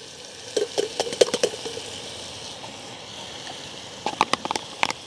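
Chopped peppers, onions and garlic tipped into a hot stainless steel pot of browning sausage, sizzling steadily, with scattered clicks and taps in the first second or so and again near the end.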